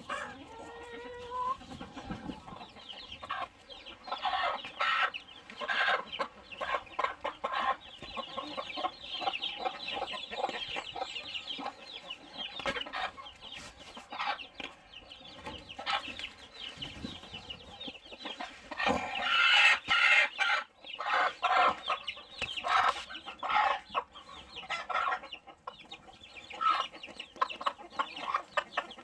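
Chickens clucking as they feed on scattered cabbage leaves: a steady run of short calls, with a louder flurry about two-thirds of the way in.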